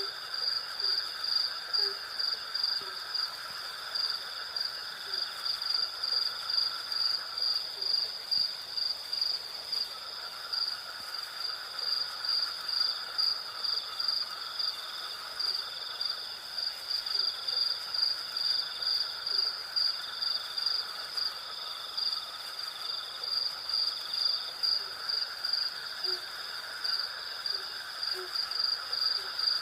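Night insect chorus: crickets chirping in a high, steady pulse about twice a second over a lower continuous insect drone, which drops out for a couple of seconds around a quarter of the way in. Faint short low calls sound now and then underneath.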